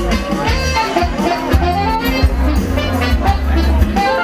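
Live band playing: a heavy bass line under drum hits, with a melodic lead line on top.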